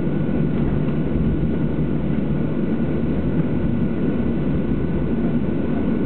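Boeing 737-700 jet engines running steadily: a constant low rumble with a faint thin whine above it, no change in level.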